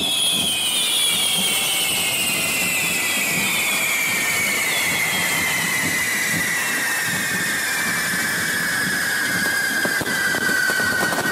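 Correfoc fireworks hissing steadily, with a whistle that slowly falls in pitch.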